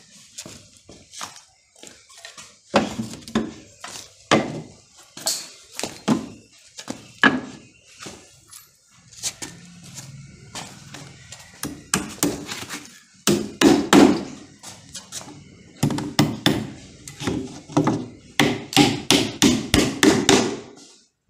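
Hammer driving nails into the timber and plywood of a formwork box: scattered knocks and wooden thunks, then near the end a quick run of hammer blows, about four or five a second.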